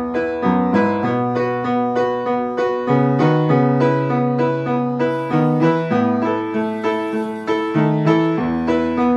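Yamaha upright piano playing a steady accompaniment of repeated chords, struck in an even rhythm over a bass line that moves from note to note.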